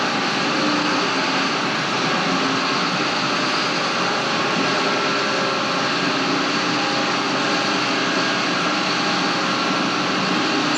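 Farm machinery running steadily: an even, unbroken engine drone.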